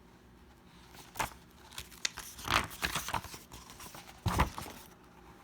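Paper rustling and handling noises, with a few soft knocks, as the pages of a picture book are turned.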